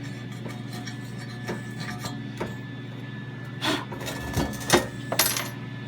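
A hand tool scraping and clinking on metal parts: scattered light clicks, then a few short rasping strokes about two-thirds of the way in, over a steady low hum.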